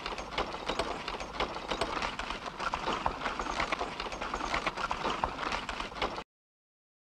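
Cartoon sound effect of a small van driving: a busy, irregular rattling clatter that cuts off abruptly about six seconds in.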